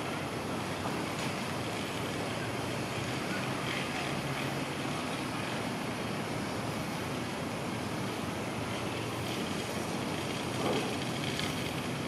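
Steady wash of distant city traffic noise with a faint low hum, even throughout.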